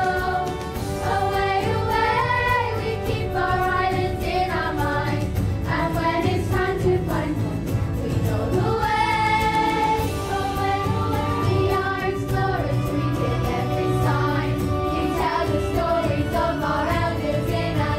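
A young ensemble cast of children and teenage girls singing together as a chorus with instrumental accompaniment, in the finale of a stage musical.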